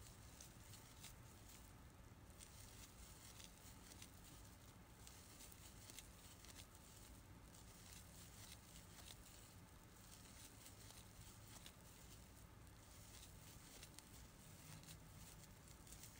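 Near silence with faint, irregular rustling and small ticks: a crochet hook catching and pulling sparkly scrubber yarn through stitches while double crochets are worked.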